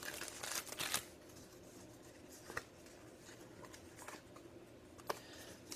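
Packaging rustling as a small packet of paper envelopes is opened by hand, for about the first second, then a few faint ticks of handling.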